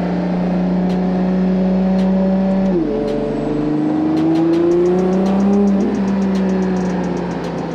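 Ferrari LaFerrari V12 running through a RYFT titanium exhaust. The engine holds a steady note, its pitch drops sharply a little under three seconds in, as at a gear change, then climbs steadily as the car pulls again.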